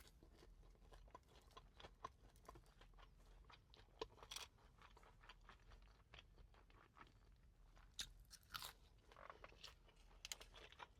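Close-miked chewing of fast food: soft crunching and wet mouth clicks, with a few louder crunches about four seconds and eight seconds in.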